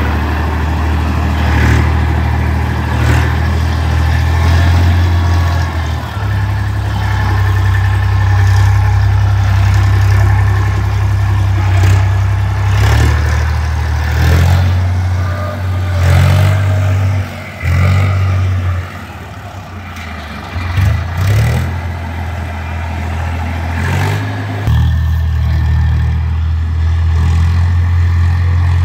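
Eicher 5660 tractor's diesel engine running under load, its revs rising and falling, with occasional clatter. The engine drops lower for several seconds past the middle, then picks up again.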